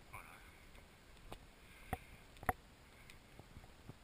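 A few faint, sharp taps and knocks, some about half a second apart, over a quiet background, muffled by a waterproof camera housing.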